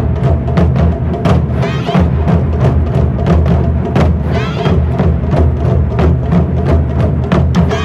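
Japanese taiko drum ensemble playing: large barrel drums struck hard with wooden sticks in a fast, driving rhythm, with a deep low boom under sharp rim-and-head hits. A few shouted calls from the drummers rise above the drumming now and then.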